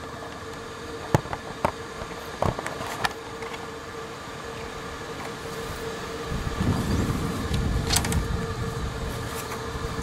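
Handling noise from a camera being mounted on a tripod: a few sharp clicks and knocks in the first three seconds, then a low rumbling rub from about six seconds in, over a steady background hum.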